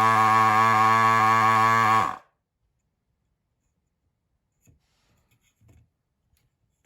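The electric vacuum pump of an S-993A desoldering gun runs with a steady, loud hum while the trigger is held, sucking molten solder off the joints. It cuts off suddenly about two seconds in, and a couple of faint clicks follow.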